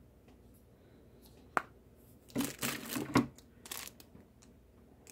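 A single sharp click, then clear plastic wrapping on a makeup brush crinkling in several short rustles as it is handled.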